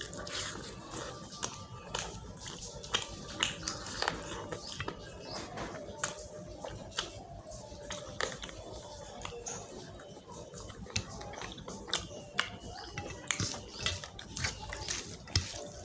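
A person chewing mouthfuls of rice and chicken curry, with irregular wet smacking and clicking mouth sounds.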